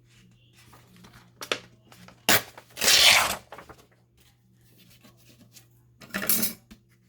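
Paper being torn against a tear ruler: one long tear about three seconds in, then a shorter tear near the end, with light paper handling between.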